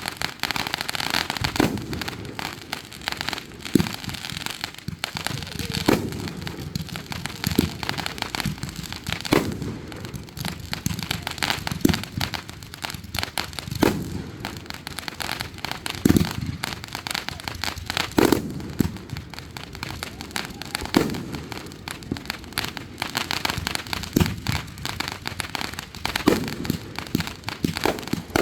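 Fireworks going off: a continuous crackle of many small bursts, with a deep boom every couple of seconds that rumbles away.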